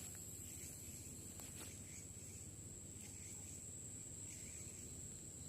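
Insects, crickets or similar, trilling in one steady, unbroken high tone over a faint low background hiss.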